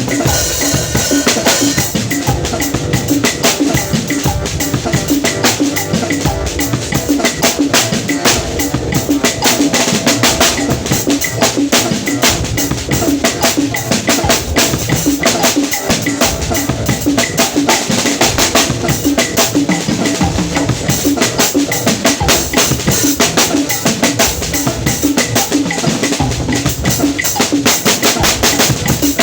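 Drum kit being played without a break, a dense run of fast strokes.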